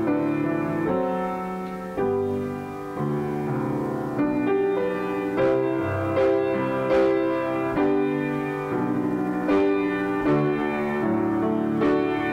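Grand piano playing a slow piece of held chords, with new notes struck about every half second to a second.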